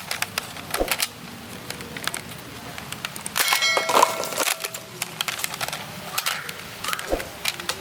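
Clicks, taps and knocks of hard objects being handled, with a short metallic ringing ding about three and a half seconds in.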